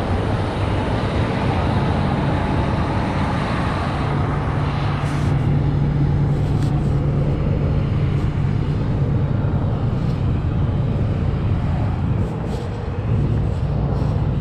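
Steady low drone of idling semi-truck diesel engines. The hum grows a little stronger about four seconds in and eases back near the end.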